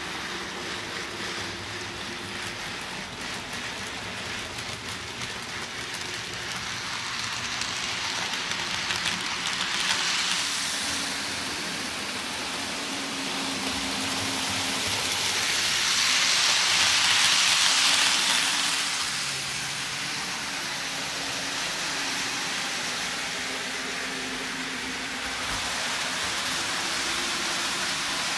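N gauge model trains running on the layout: a steady rushing hiss of wheels on rail and small motors, swelling about ten seconds in and loudest around sixteen to nineteen seconds in as a train passes close.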